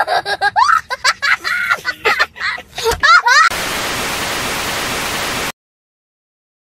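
A young child laughing and squealing in high, gliding bursts, then a burst of TV static hiss about three and a half seconds in that cuts off abruptly into silence two seconds later.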